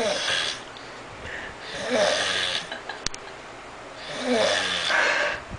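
A sleeping person snoring: three snoring breaths about two seconds apart, with one short click between the second and third.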